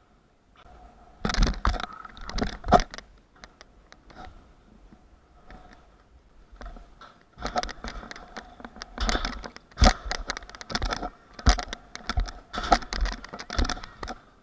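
Small hard wheels rolling on skate park concrete with a faint steady whir, broken by sharp clacks from landings and deck impacts and rattling scrapes from grinds, denser in the second half.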